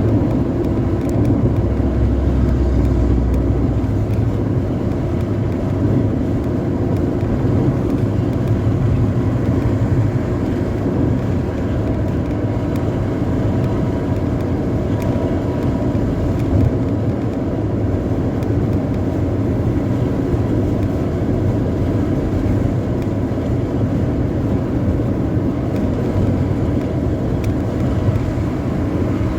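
Steady drone of a Putri Luragung bus's engine and deep 'ngorok' (snoring-style) exhaust at speed, mixed with road noise. The level stays even, with a stronger low rumble in the first few seconds.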